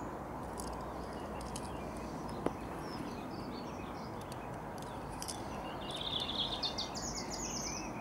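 Steady outdoor background noise with small birds chirping, including a quick twittering series about six seconds in. A few faint clicks, the sharpest about two and a half seconds in.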